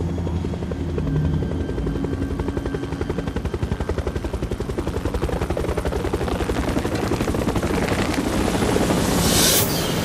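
Fast rhythmic chopping, about ten beats a second, building over several seconds like a helicopter's rotor, then a loud rushing burst near the end.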